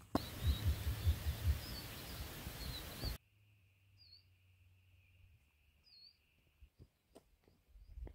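Wind rumbling on the microphone with small birds chirping, cut off abruptly about three seconds in. After that, quiet outdoor air with a few separate bird calls and a faint steady high trill that stops near the end.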